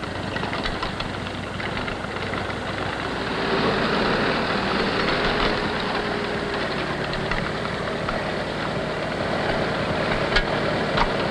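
Farm tractor engine running steadily at a low, even pace.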